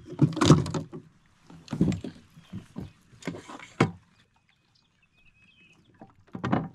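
Irregular splashes and knocks from a hooked bass being fought and brought alongside a fishing kayak. There are several bursts in the first four seconds, a pause of about two seconds, then one more short burst near the end.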